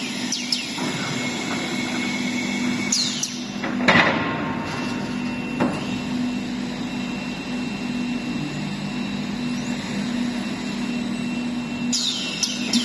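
Woodworking machinery in a plywood factory running with a steady hum, with a sharp knock about four seconds in and short high falling squeals twice.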